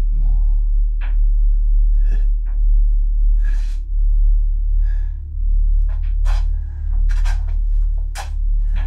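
Low, steady drone of a horror film score, with short breathy sounds scattered over it, about one or two a second.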